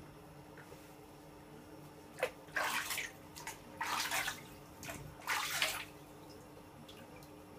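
Water splashing in a bathtub as a puppy is washed: three short splashes about a second apart, with a small knock just before the first.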